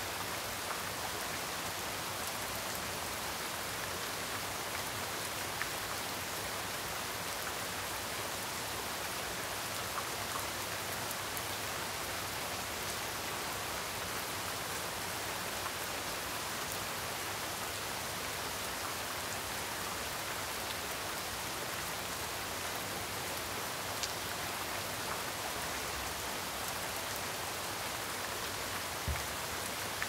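Steady typhoon rain falling on a garden, an even hiss with a few faint drop ticks. A single soft low thump comes near the end.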